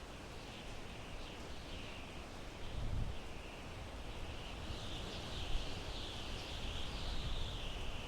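Wind blowing through pine trees: a steady rushing hiss that swells a little in the second half, over a low gusty rumble.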